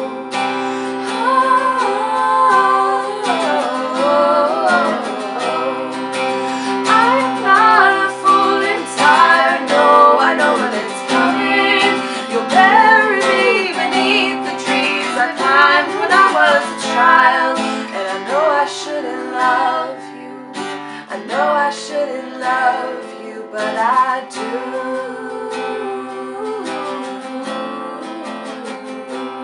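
Two women singing together over a strummed acoustic guitar. It gets quieter over the last several seconds as the song comes to its end.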